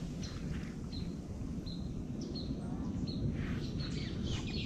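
A bird repeating a short, high chirp at an even pace, about every two-thirds of a second, over a steady low outdoor rumble.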